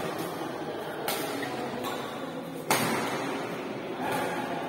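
Badminton rackets striking a shuttlecock during a doubles rally: three sharp smacks about one and a half seconds apart, the middle one loudest, each echoing in a large hall.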